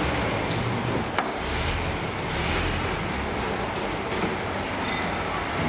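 Matrix 24 thread grinding machine running, a steady mechanical hum and rush. There is a sharp click about a second in and a brief thin high whine a little past the middle.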